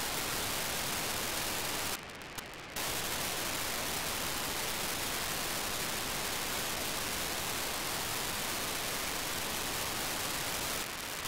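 FM-demodulated hiss from an RTL-SDR receiver tuned to BlueWalker-3's 437.5 MHz beacon. About two seconds in, the hiss drops for just under a second as a 2400-baud FSK telemetry burst from the satellite quiets the receiver, and it dips again briefly near the end.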